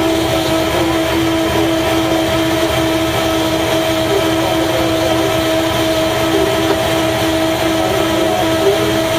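Subaru Legacy's engine idling, heard from inside the cabin: a steady low rumble under an even, unchanging whine.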